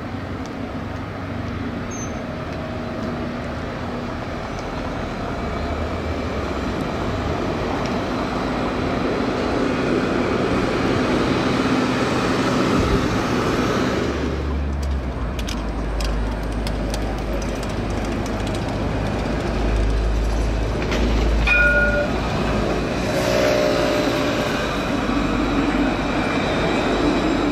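Montpellier line 4 tram running on street rails past the listener, its rolling noise building over the first dozen seconds into a deep rumble. A brief tone sounds a little over twenty seconds in.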